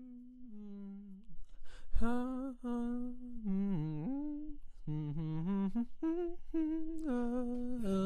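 A single voice humming a wordless melody, unaccompanied, holding long notes with short dips and slides in pitch between phrases. There is a brief sharp click about two seconds in.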